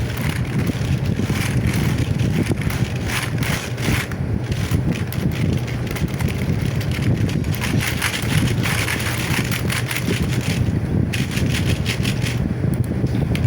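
A steady low engine-like rumble, with wind buffeting the microphone.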